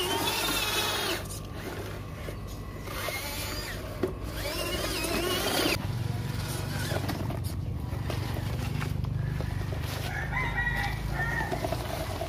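A rooster crowing and chickens clucking, in calls about a second in, from about three to six seconds, and again near the end. From about halfway there is a low steady hum under them, from the RC truck's small electric motor.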